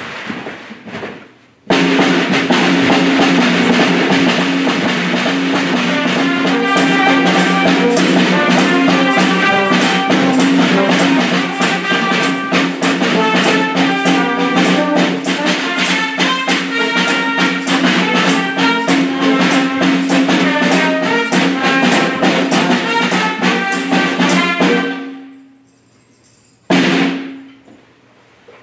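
Loud live ensemble music: fast, dense drumming and clattering percussion over two steady held low notes. It plays in a short burst, then a long stretch from about two seconds in that stops about 25 seconds in, followed by one more short burst.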